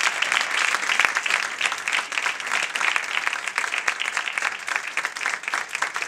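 Audience applauding: dense, steady clapping from many hands, welcoming a performer introduced by name.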